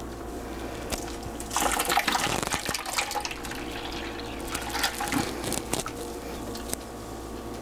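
Water sloshing and splashing in a glass bowl of soapy water as wool yarn is kneaded and squeezed, then lifted out with water running and dripping back into the bowl. It is freshly dyed yarn being washed with soap to rinse out loose dye. The splashing is loudest from about one and a half to three seconds in.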